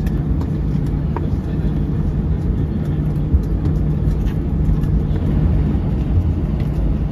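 Cabin noise of an Airbus A320 rolling out on the runway after landing: a steady low rumble of the engines and the wheels on the tarmac, with small rattles and clicks from the cabin.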